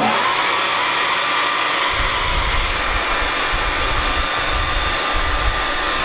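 Revlon 1875W infrared hair dryer switched on at warm heat and high speed: the motor spins up with a brief rising whine at the start, then blows with a steady loud rush of air and a faint steady whine. A low rumble comes and goes from about two seconds in.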